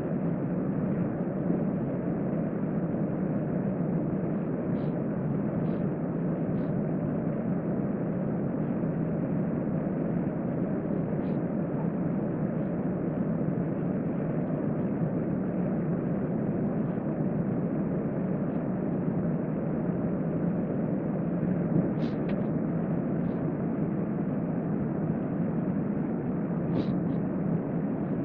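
Steady, even rushing noise of a hotel room's ventilation fan, with a few faint soft ticks scattered through it.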